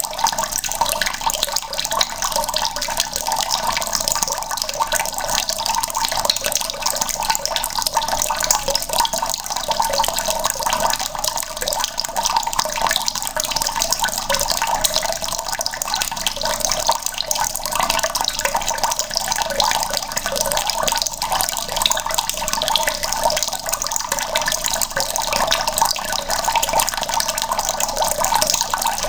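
Water running steadily from a tap into a plastic bucket, a continuous splashing stream.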